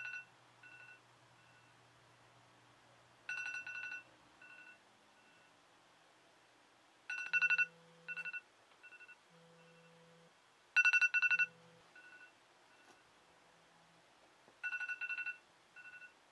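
Smartphone alarm going off: a bright, rapidly pulsing beep tone comes in bursts about every four seconds, each burst trailed by fainter repeats.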